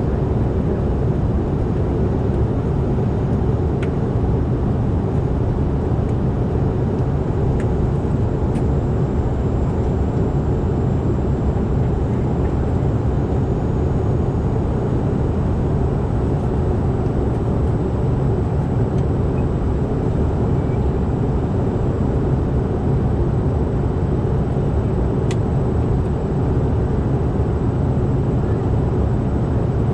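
Steady cabin noise of a Bombardier CRJ-900 jet in flight: the even drone of its two rear-mounted GE CF34 turbofans and rushing air, deepest in the low range, with no change in level.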